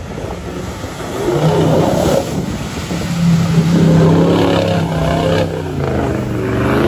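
Toyota Land Cruiser 70-series' 1VD-FTV V8 turbo diesel pulling under load while the truck drives through water, with the splash of spray. The engine note is fairly steady and gets louder about a second in.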